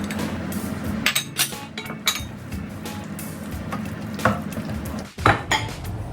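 A utensil knocking and scraping against a pan while stirring thick radish cake batter, with a series of sharp clicks and knocks, the loudest a little over five seconds in.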